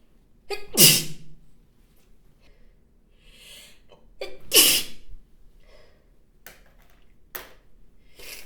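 A person giving two loud, wet, spraying sneezes about four seconds apart, each starting with a short sharp catch of breath. A soft breath in comes between them, and a few quieter sniffs or breaths follow near the end.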